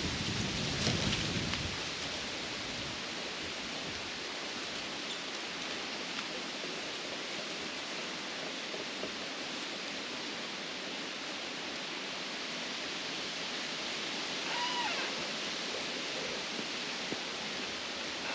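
Steady wind rustling through the tree canopy, with a low rumble in the first couple of seconds.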